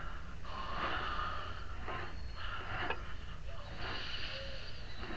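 A person breathing and sniffing close to the microphone, with a faint click about three seconds in.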